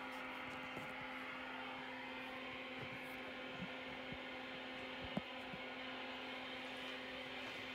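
Idle guitar amplifier and pedalboard giving off a steady electrical hum and hiss, with a few faint clicks and one sharper click about five seconds in.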